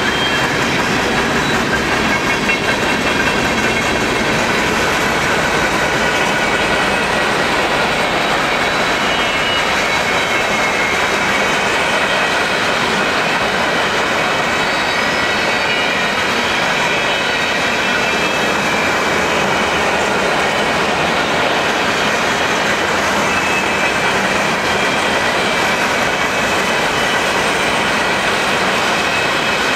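Freight train cars rolling past at speed: a steady rumble and clatter of steel wheels on rail, with thin high-pitched wheel squeal coming and going.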